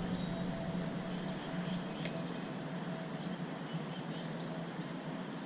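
Outdoor ambience: steady background noise with scattered faint, short bird chirps, and a single sharp click about two seconds in.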